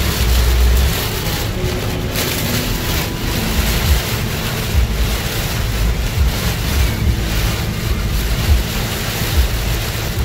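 Heavy rain and storm-force wind against a moving car, heard from inside the cabin as a steady rushing hiss, with gusts buffeting the microphone in uneven low rumbles, strongest in the first second.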